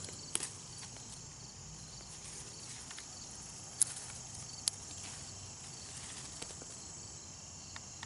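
Garden insects chirring steadily in a high, continuous drone, with a few sharp clicks, one near the start and two about four seconds in.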